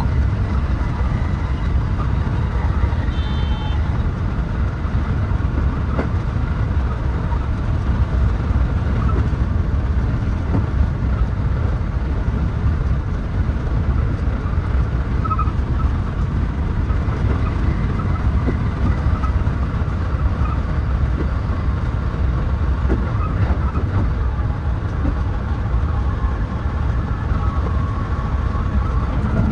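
Steady running noise of a JR West 223 series 2000 electric train heard from the driver's cab: a continuous low rumble of the train moving along the track. A short faint high tone comes about three seconds in.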